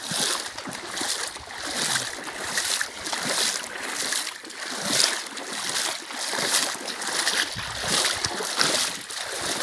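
Legs wading through shin-deep floodwater, a swishing splash with each stride, about one every three-quarters of a second.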